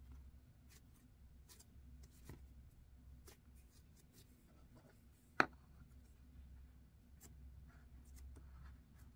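Blue cloud slime squished and kneaded by hand, giving faint scattered crackles and soft ticks, with one sharp louder click about five seconds in. Near the end the slime is pressed down into its plastic tub.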